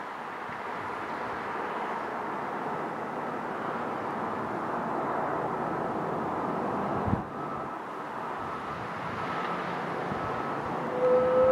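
Caterpillar D6 crawler dozer's diesel engine working steadily as it pushes a load of snow, with one sharp knock about seven seconds in. Just before the end its reversing alarm begins to beep.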